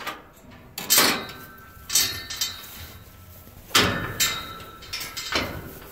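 Red steel livestock panel gate of a lamb pen clanking as it is handled and opened, several sharp metal clanks with a short ring. The loudest clank comes about a second in.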